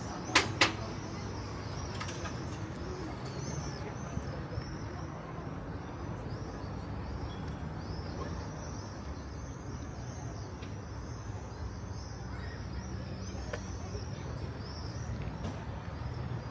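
Outdoor ambience of many small birds chirping continuously over a low steady rumble. Two sharp clicks come just under a second in.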